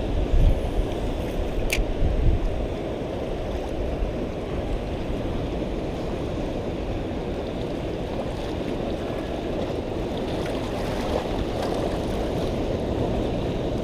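Sea water washing and lapping against the jetty's rocks, with wind rumbling on the microphone. A single sharp click about two seconds in.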